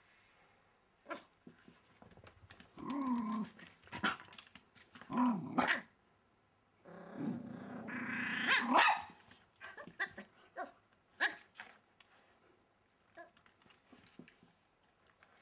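Welsh Terrier growling and barking in play, in a few bursts with the longest and loudest near the middle, and scattered sharp clicks in between.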